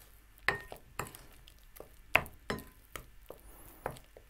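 A spatula stirring a thick chocolate mixture in a glass mixing bowl, knocking and clinking against the glass in irregular strokes. One clink, about two seconds in, is the loudest.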